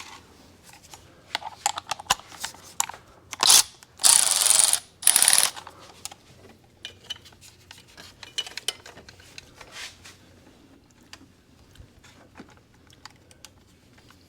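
Metal hand tools clicking and clinking on the car's engine parts, with three short loud hissing bursts about four to five seconds in.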